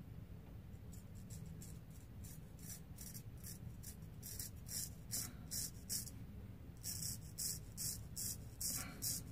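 Art of Shaving straight razor scraping stubble off a lathered cheek in a quick series of short strokes, about three a second, with a brief pause just past the middle.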